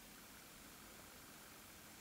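Near silence: a faint steady hiss and low hum of room tone beside a wood fire burning in a closed fireplace, with no crackles or pops.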